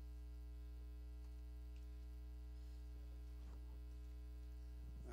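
Steady electrical mains hum, a low buzz with many overtones, with a few faint, indistinct sounds in the middle.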